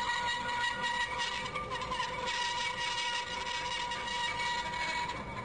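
Doall vertical bandsaw running and cutting a plate that its pneumatic table feed pulls through the blade: a steady high whine over a faint hiss.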